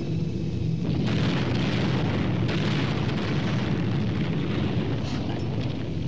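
Rumbling explosions over the steady drone of a bomber's engines. A loud swell of blasts starts about a second in, surges again a moment later and eases off near the end.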